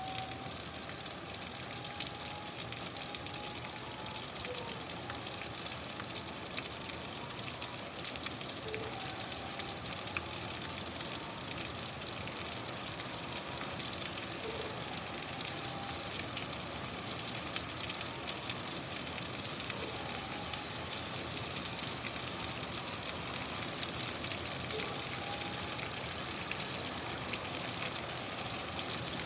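Steady rain with a dense crackling patter, even in level throughout. Faint short tones come and go every four to six seconds underneath it.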